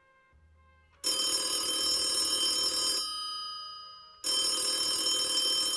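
Black rotary wall telephone's bell ringing twice: two long rings of about two seconds each, with a short gap between.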